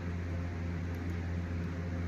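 Steady low hum with an even hiss from a running electric motor.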